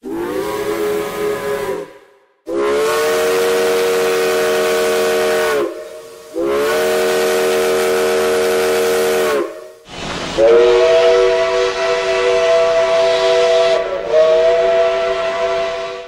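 Steam locomotive chime whistle blown in several long blasts, a steady chord over hissing steam: a short blast, then two of about three seconds each. After a pause a longer blast with a different chord follows, dipping briefly near the end.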